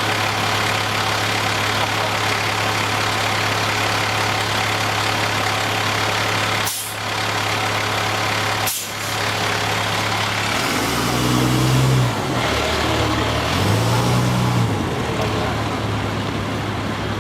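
Large vehicle engines running steadily. Two brief sharp hisses come about seven and nine seconds in, and an engine revs up twice, around eleven and fourteen seconds in.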